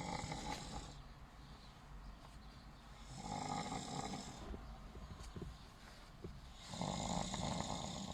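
A sleeping man snoring, one snore about every three and a half seconds, each lasting over a second.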